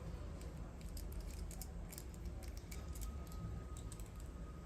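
Faint, scattered small clicks and ticks of small tools and tiny screws being handled during a laptop teardown, over a low steady hum.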